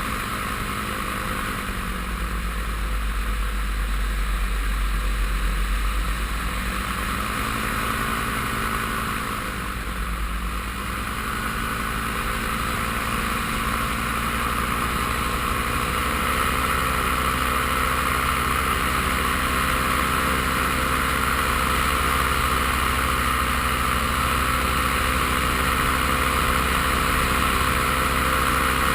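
Paramotor engine and propeller running in flight. The engine pitch drops and comes back up twice in the first third, as the throttle is eased off and reopened, then holds steady.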